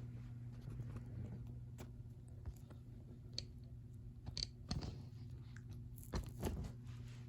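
Hunter Low Profile ceiling fan with its 177 mm motor coasting down after being switched off: a faint steady low hum with scattered light clicks and ticks, the loudest a pair about six seconds in.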